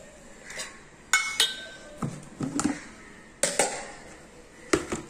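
Kitchenware being handled on a counter: about half a dozen sharp clinks and knocks. The first two, about a second in, ring briefly.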